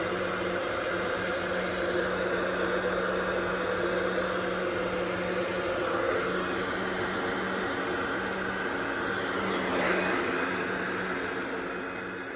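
Electric heat gun running steadily: a fan motor hum with a rush of blowing air, shrinking heat-shrink crimp connectors on fuel pump wiring. It starts to fade near the end.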